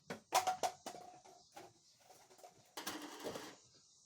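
Plastic toy packaging being handled: several sharp clicks and creaks from the plastic tray in the first second, with a brief squeak, then a short rustle about three seconds in.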